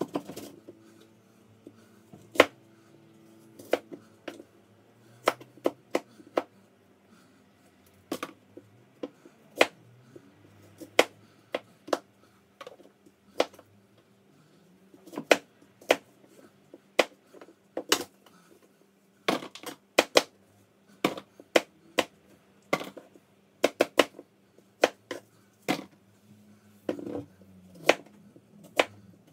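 A kitchen knife slicing apples on a cutting board: irregular sharp knocks of the blade striking the board, about one a second, with quicker runs of cuts now and then.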